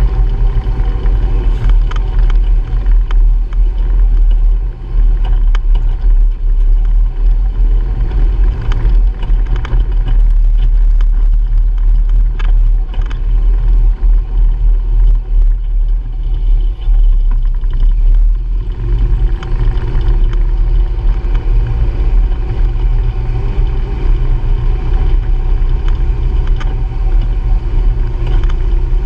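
Honda Pioneer 700-4 side-by-side's single-cylinder engine running as it drives a rough dirt trail, under a constant low rumble with frequent knocks and rattles from the bumps. The engine note eases through the middle and picks up again about two-thirds of the way through.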